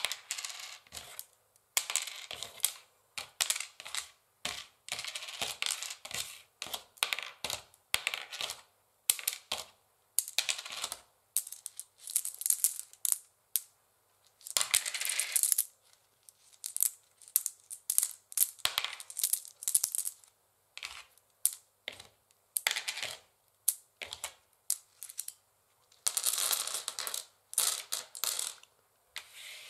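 Long fingernails tapping and scratching on a wooden chessboard: rapid clusters of sharp clicks, broken by a few longer stretches of scratching.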